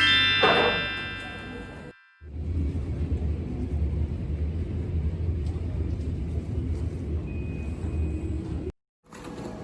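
A short music sting ends with a rising run of notes. After a cut there is the steady low rumble of a vehicle in motion, as heard from inside it, lasting about six seconds.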